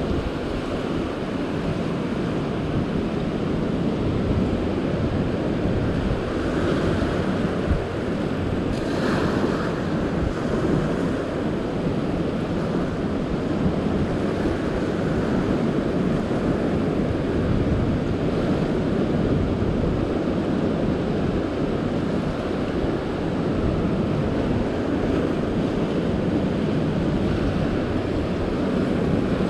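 Ocean surf washing steadily over a rocky shore ledge, with wind buffeting the microphone. A brief louder splash comes about nine seconds in.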